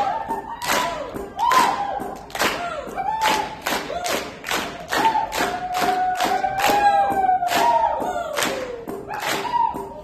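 Live ensemble music with singing over a steady beat of sharp percussive strikes, about three a second.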